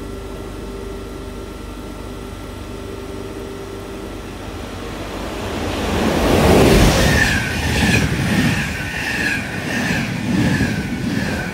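Steady rain noise in the cab. About five seconds in, an ÖBB Taurus electric locomotive hauling passenger coaches passes close on the adjacent track at speed: a rising rush that is loudest as the locomotive goes by, then a rhythmic clatter of wheelsets about every two-thirds of a second as the coaches pass.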